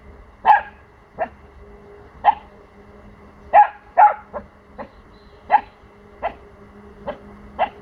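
Four-month-old Pomsky puppy (Pomeranian–husky cross) giving about eleven short barks at irregular intervals, two close together in the middle. It is alert, territorial barking at unfamiliar sounds from the neighbours' house.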